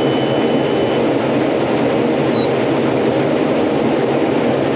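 Heavy farm harvesting machinery running steadily: a loud, even engine drone with a constant low hum, and a faint high whine that stops about a second in.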